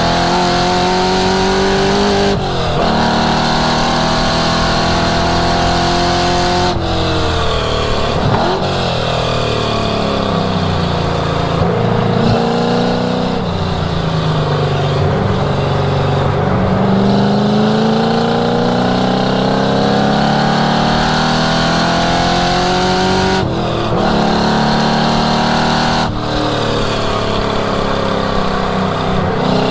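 1967 Mustang's V8 under hard acceleration on track, climbing in pitch through the gears with quick breaks at each upshift. In the middle it drops in pitch as the car slows for a corner, then climbs again and shifts up twice more near the end.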